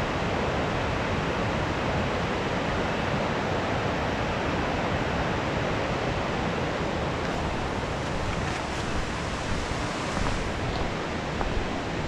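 Steady rushing of a forest stream flowing in the gully below.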